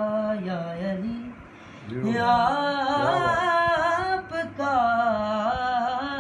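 Young man's voice singing a devotional qaseeda, drawing out long wavering notes in melismatic runs. The held note fades about a second in, and a new phrase starts about two seconds in.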